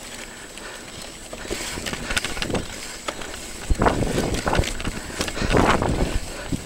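Mountain bike rolling over a rough, stony track: tyres crunching on loose stones and the bike rattling over the bumps. It gets rougher and louder from about four seconds in, as a run of knocks and jolts.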